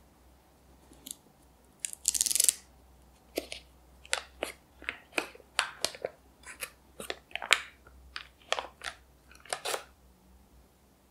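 A block of butter being unwrapped from its carton and paper wrapper: a run of short, crisp paper crinkles and crackles, with a longer rustle about two seconds in.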